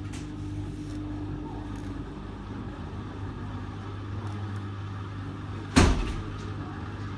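Hotpoint WT761 Ultima washing machine's motor humming steadily as the machine goes into a spin. There is a single loud knock nearly six seconds in.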